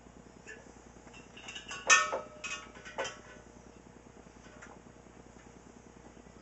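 Glass clinking and knocking as the siphon hose and hands are worked at the neck of a glass wine jug: a cluster of sharp, ringing clinks about two seconds in and one more about a second later.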